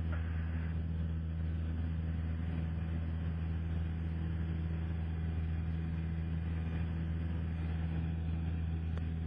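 Cessna 172SP Skyhawk's four-cylinder Lycoming engine and propeller droning steadily in the climb after takeoff, heard from inside the cockpit.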